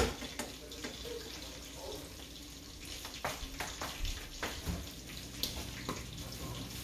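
A metal spoon clinks once, sharply, against a small frying pan. A steady low hiss follows, with scattered small ticks and pops, as buffalo sauce warms in the pan on the gas stove.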